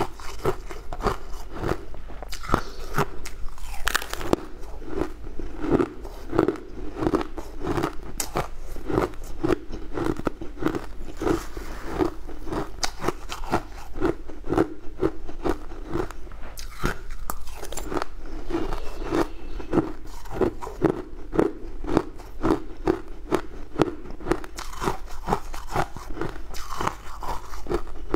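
Close-up crunching and chewing of mouthfuls of crushed frozen ice, a steady run of crisp crunches.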